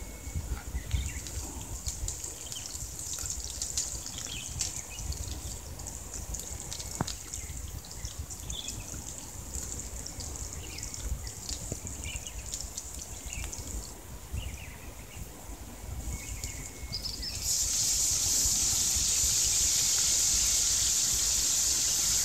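Sliced onions and green chillies frying in hot oil in a kadai, sizzling with scattered crackles. About three quarters of the way through, the sizzle turns much louder and steadier, then stops abruptly near the end.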